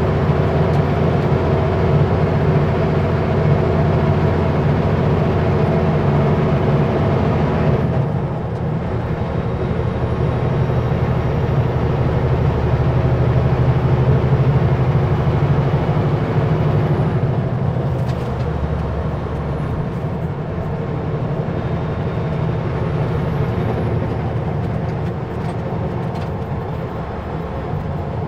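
Kenworth W900L semi truck driving on the highway, its diesel engine running steadily under road noise, heard from inside the cab. The engine note drops about eight seconds in.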